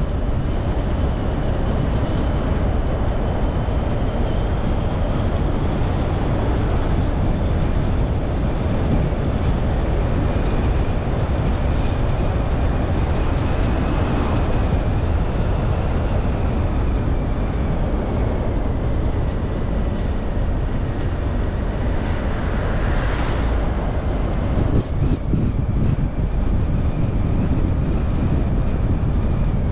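Car driving along a road: steady tyre and engine noise, heaviest at the low end, with a faint high whine that slowly drifts in pitch.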